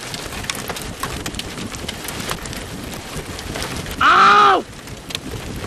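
Rain and wind beating on a car, heard from inside, with scattered taps of drops hitting the roof and windshield. About four seconds in, a person gives one short, loud shout.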